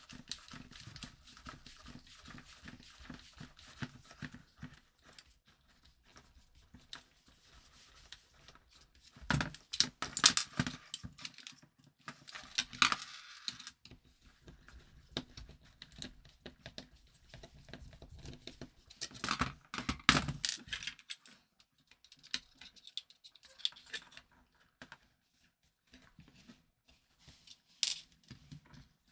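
Screwdriver and small metal bracket being worked loose on a plastic car central-locking actuator: scattered light clicks, scrapes and rattles of small parts being handled. Louder clatters come about ten, thirteen and twenty seconds in.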